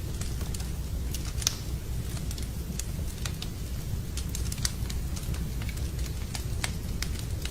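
Wood fire burning in a fireplace: frequent irregular sharp pops and crackles over a steady low rumble.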